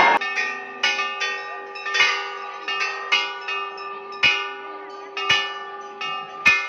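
Hanging brass temple bells rung by hand, struck about twice a second, their tones ringing on and overlapping.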